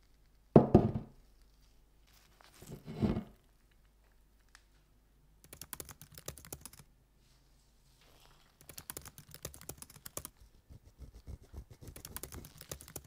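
Antique cast-iron sad iron set down on a table with a heavy thunk about half a second in, then a softer thud about two seconds later. After that come three stretches of quick, light clicking and rattling as the iron is handled.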